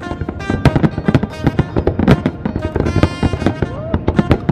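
Fireworks bursting and crackling in quick succession, with music playing over them.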